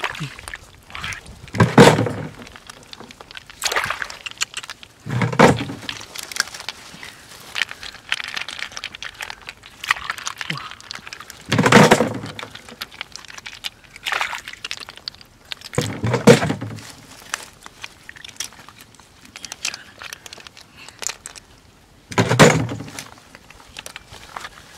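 Hands squelching and splashing through wet mud and shallow water among dead twigs while feeling for snails, with small crackles and rustles throughout and about six louder wet squelches spaced a few seconds apart.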